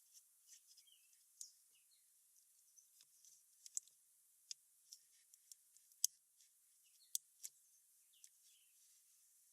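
Near silence with scattered faint, sharp high clicks and ticks, a few of them a little louder around the middle, and a few faint short chirps.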